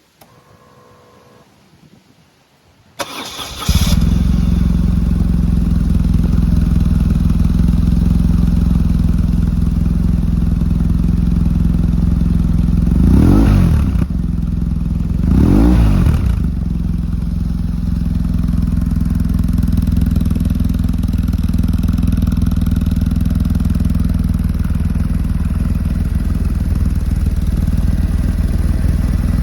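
BMW R1100S boxer-twin engine with a Yoshimura titanium slip-on silencer, started after about three seconds: brief cranking, then it catches and idles steadily. Two short throttle blips rise and fall in pitch about halfway through, then it settles back to idle.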